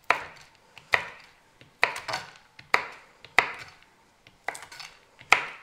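Kitchen knife chopping almonds on a wooden chopping board: sharp knocks of the blade on the board, about one a second.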